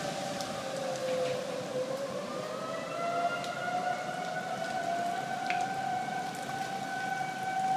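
Outdoor tornado warning sirens wailing: one holds a steady pitch while another slides down and slowly climbs back up, over a steady hiss of rain.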